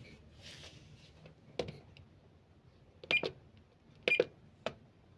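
A few sharp clicks and knocks with a short ringing edge: one about a second and a half in, a quick double click near three seconds, another near four seconds and a faint one near the end.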